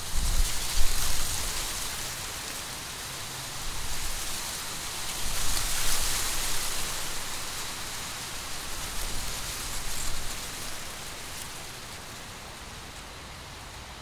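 Wind gusting through a field of dry standing corn, the brittle stalks and leaves rustling. Gusts swell about a second in, around six seconds in and near ten seconds, the strongest with a low rumble, and the wind eases off near the end.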